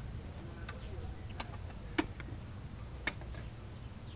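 A few scattered sharp clicks and light knocks, about four in all, the loudest about two seconds in, over a steady low background rumble.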